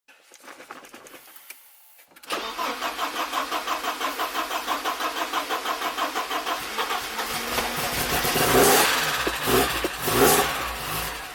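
Car engine cranked on the starter motor at an even, rapid beat for about five seconds, then catching and being revved twice near the end. It is being started after standing unused.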